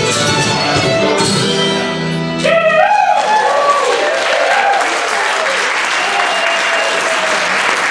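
Fiddle, mandolin and acoustic guitar playing the last bars of a folk tune, ending about two and a half seconds in. Audience applause and cheering follow.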